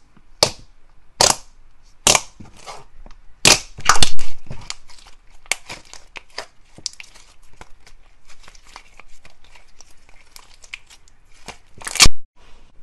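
Glossy slime being poked, folded and squeezed by hand, giving a series of sharp pops and clicks. The loudest comes about four seconds in, then a run of small crackles, and another loud pop near the end.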